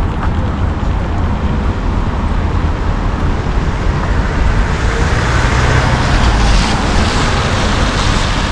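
City street traffic: a steady rumble of cars going by, growing louder and hissier about five seconds in as a vehicle passes close.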